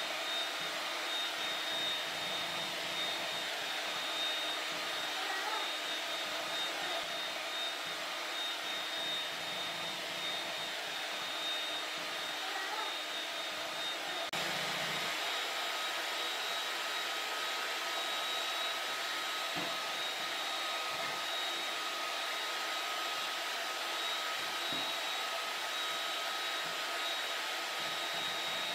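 Electric hand mixer running steadily with a high whine, its beaters whipping egg whites and sugar into a stiff meringue foam.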